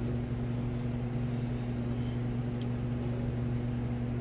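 Steady low electrical hum of a workshop, with a faint higher hiss over it and no clear cutting sounds.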